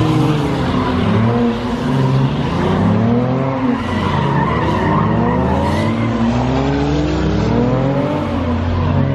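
A car's engine revving hard, its pitch rising and falling about once a second, over tyre squeal as it spins its tyres in a burnout or donut.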